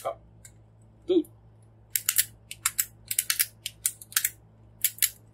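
Plastic joints of a Mastermind Creations Proditor Nimbus transforming figure clicking as the parts are forced, a run of sharp clicks in quick clusters from about two seconds in. It sounds crunchy, as if the plastic were about to break.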